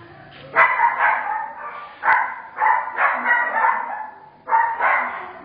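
A dog barking repeatedly, the barks often coming in quick pairs about half a second apart with short pauses between.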